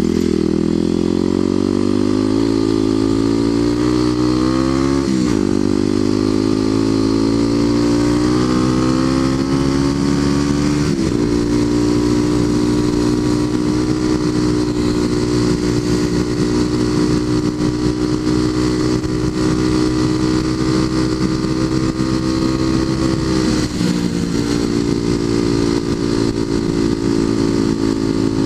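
Kawasaki KLX250SF single-cylinder engine through a Muzzy aftermarket exhaust, pulling hard under throttle. Its pitch climbs and drops back twice as it shifts up, about five and eleven seconds in, then it holds a steady high-rev cruise, with a brief dip near the end.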